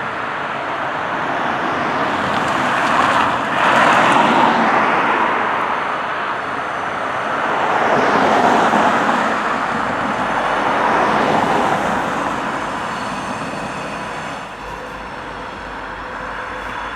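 Road vehicles passing one after another, three swells of tyre and engine noise that rise and fade over a steady background hum.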